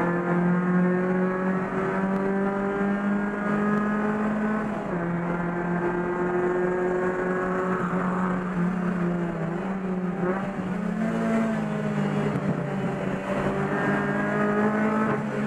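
Chevrolet Corsa race car's engine running hard at high revs, heard from inside the cabin. The engine pitch holds, drops and climbs again several times as the driver shifts gears and lifts and reapplies the throttle.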